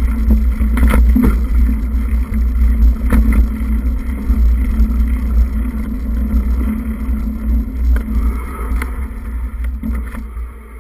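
Wind rumbling on the microphone of a camera moving along a rough dirt trail, over a steady low hum, with scattered knocks and rattles from bumps. It quietens near the end.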